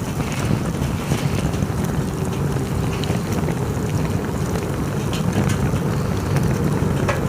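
Campfire burning: scattered sharp crackles and pops over a steady low rumble.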